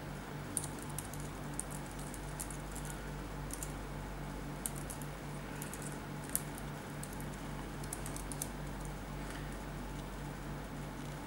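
Computer keyboard keys clicking in sparse, irregular keystrokes as text is typed, over a steady background hum.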